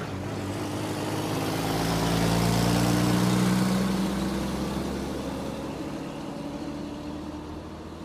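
Large truck driving past: its engine and tyre noise grow louder to a peak about three seconds in, then fade away as it moves off.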